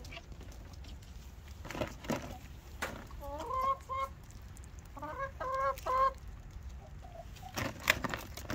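Chickens clucking: a short run of quick calls about three seconds in and another about five seconds in, with scattered sharp taps and rustles between them.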